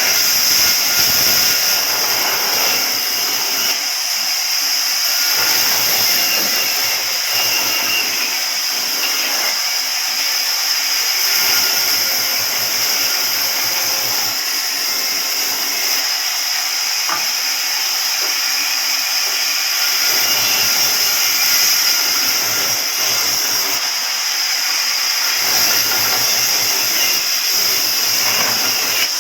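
Sawmill power saw (aara machine) running and cutting wood. It makes a steady high hiss-like whine, with a lower sound that comes and goes every few seconds.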